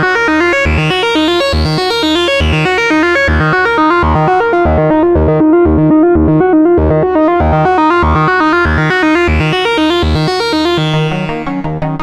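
Korg prologue analogue polyphonic synthesizer playing its "SH Arp" preset: a fast arpeggio of repeated notes over a pulsing bass. Its filter opens to a brighter tone and closes again twice.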